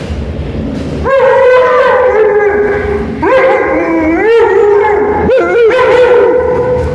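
Husky-type dog howling in two long, wavering calls, the first starting about a second in and the second about three seconds in: play-howling during rough play.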